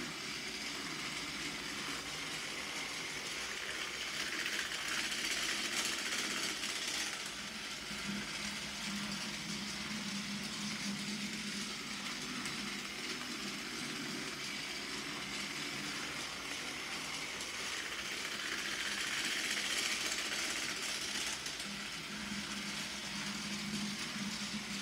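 Battery-powered Plarail TS-23 Ashima toy train running round a plastic track, its small electric motor and gears whirring steadily, growing a little louder twice as it comes round.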